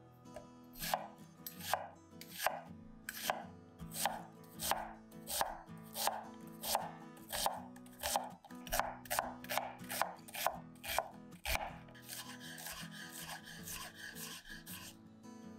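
Knife cutting vegetables on a cutting board: evenly spaced cuts, about one and a half a second, then a softer steady scraping for the last few seconds. Soft background music plays underneath.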